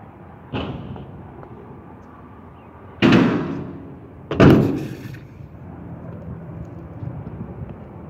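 Stunt scooter hitting a skatepark ramp: a light knock, then two loud bangs about a second and a half apart, each trailing off into the rumble of the wheels rolling.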